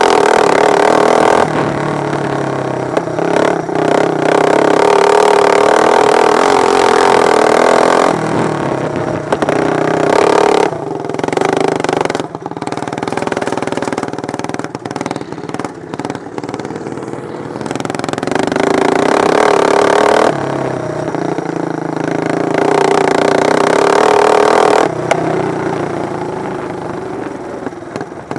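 Racing lawn mower engines running at high revs as mowers race past close by. They are loud for the first ten seconds or so, quieter for a stretch in the middle, loud again later, and fade near the end.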